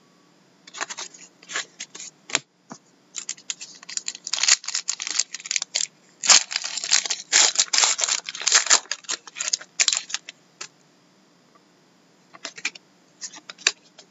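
Foil trading-card pack wrapper being torn open and crinkled by hand: a long run of quick, sharp crackles and rustles, densest through the middle, with a few lighter crackles near the end.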